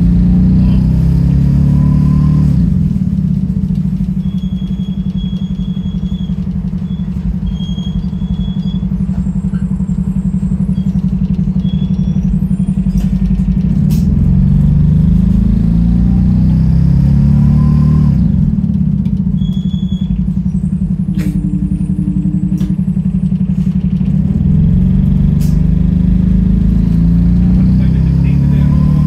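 Single-deck bus's rear-mounted diesel engine heard from inside the cabin, running loud and steady, likened to a motorbike. Its pitch climbs three times as the bus pulls away and speeds up, near the start, in the middle and near the end, with light rattles over it.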